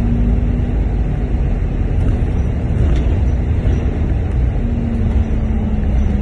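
Steady low rumble of a London bus's engine and road noise heard from inside the bus, with a low engine hum that fades about a second in and comes back near the end.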